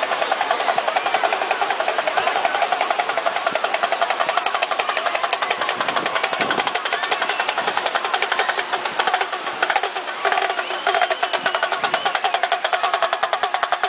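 Background music with a fast, even percussive beat.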